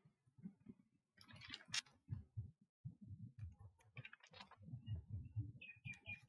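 Faint, irregular clicks and soft low knocks, with a short high tone repeating several times near the end.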